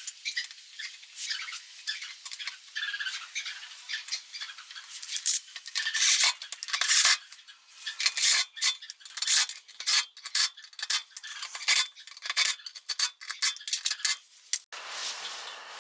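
Small metal tools and parts clinking, scraping and rattling in irregular bursts as they are handled. A steady hiss comes in abruptly near the end.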